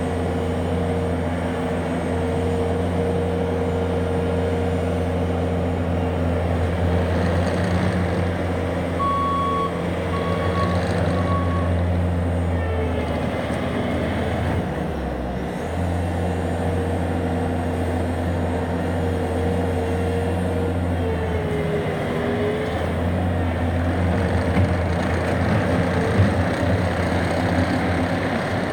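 Bobcat T450 compact track loader's diesel engine running, its engine speed dipping briefly about halfway through and shifting again a little later. A backup alarm beeps three times, about a second apart, roughly nine seconds in.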